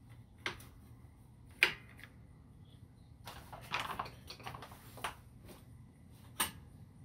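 Scattered sharp metal clicks and knocks as a drive hub is slid onto a walk-behind lawnmower's axle at the transmission bracket. There is a cluster of clicks a little past halfway, and the loudest knock comes about a second and a half in.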